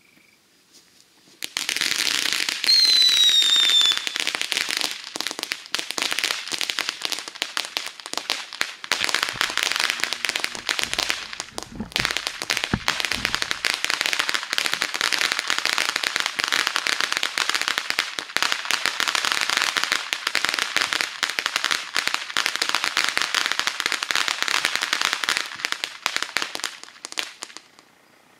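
Consumer ground fountain firework spraying sparks with dense, continuous crackling for about 26 seconds. It starts with a short falling whistle and has a couple of low thumps about halfway through.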